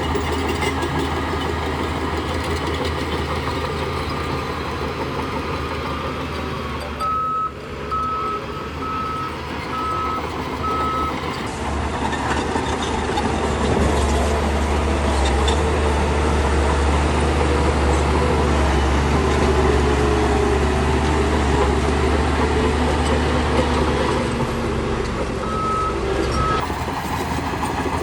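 Heavy earthmoving machinery's diesel engine running steadily, with a reversing alarm beeping five times about seven seconds in and twice more near the end. The engine grows louder about halfway through.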